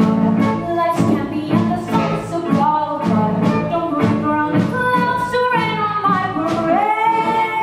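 Live band with drums, electric guitars and keyboards playing a brisk show tune, with a woman singing over it; a held note slides up near the end.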